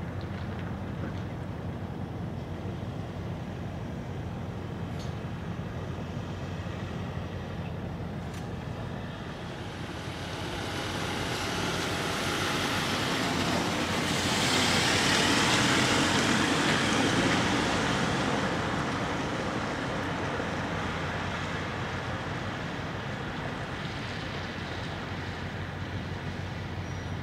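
A vehicle passing close by, its noise rising to a peak about halfway through and then fading. Under it runs a steady low hum.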